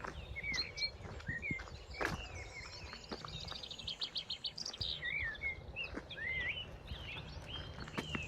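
Several birds chirping and whistling in short curved notes, with a fast trill of about eight notes a second near the middle. A few sharp knocks sound along the way over a low steady background rumble.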